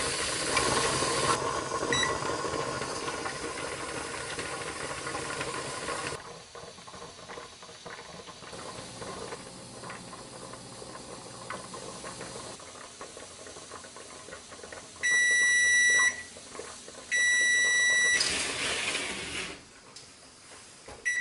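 Steam hissing from a pressure canner running at 11 pounds, loud and then dropping off sharply about six seconds in. Later comes a pair of long electronic beeps from the electric range, each about a second long and two seconds apart, then a short hiss of steam.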